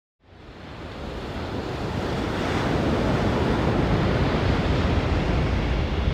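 Ocean surf breaking and washing up the beach, with wind buffeting the microphone as a low rumble. The sound fades in over the first two seconds, then holds steady.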